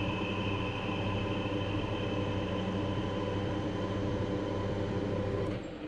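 Metal lathe running under power with a steady hum, taking a light thread-cutting pass on a 20 × 1.5 mm bolt. The hum cuts off near the end.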